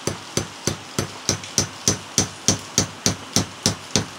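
Small hammer tapping steadily on a small transformer's steel laminated core, about three light metallic strikes a second, growing somewhat louder after the first second. It is driving out the first E-shaped lamination plate, which is stuck fast with old glue.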